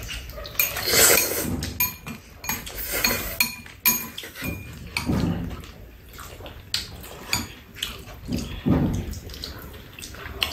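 Noodles being slurped and chewed in several short bursts, with chopsticks clicking against bowls and a metal tray.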